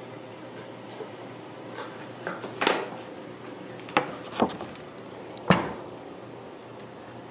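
A few short knocks and clunks, four or five in all between about two and six seconds in, the last the loudest, over a steady low hum.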